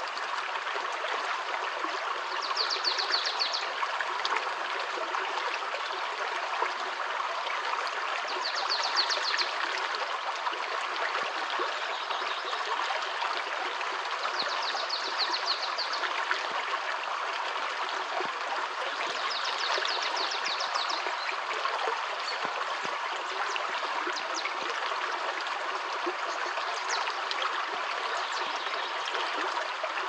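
Shallow stony stream flowing and trickling steadily. A bird repeats a short, rapid trilled phrase about every six seconds.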